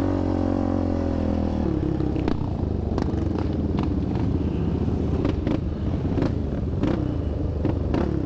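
Yamaha Raptor 700 quad's single-cylinder engine running at a steady throttle, then easing off about two seconds in to an uneven, pulsing low-speed note. Sharp knocks and clatter come every second or so as the quad rides over rough trail.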